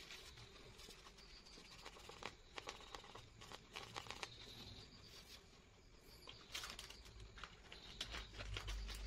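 Faint rustling and soft ticks of hands brushing over and handling a sheet of drawing paper, with a low thump and a few louder taps near the end.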